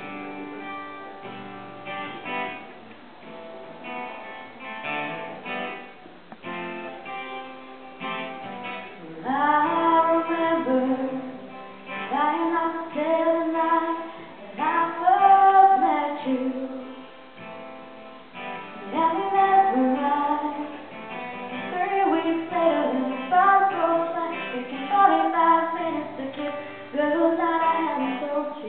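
Acoustic guitar strummed on its own, then about nine seconds in a woman's solo voice comes in singing over it, live in a reverberant room.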